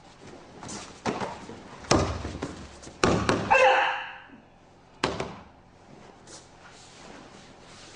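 Heavy thuds of bodies and feet hitting a training mat during a hapkido throw and fall, a few sharp knocks spread over the first five seconds, the loudest pair about three seconds in, followed by a short vocal cry.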